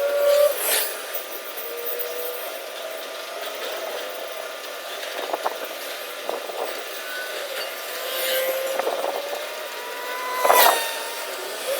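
Machinery noise with a wavering whine, broken by two short loud rushes of noise, one about half a second in and one near the end.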